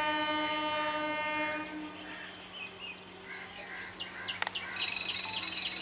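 Horn of an Indian Railways EMU local train: one long steady blast that stops about a second and a half in. A sharp click follows about four seconds in, and then a high, pulsing tone starts near the end.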